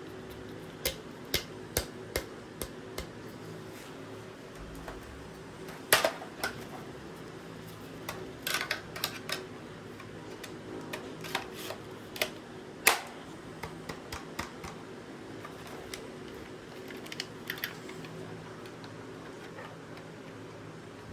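Sharp clicks and clacks from an airsoft sniper rifle's parts being handled, scattered irregularly with the loudest about two-thirds of the way through, over a steady low hum.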